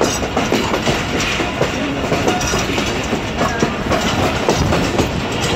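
Passenger train coaches' wheels running over the rails: a steady rumble and clatter with quick clicks over the rail joints.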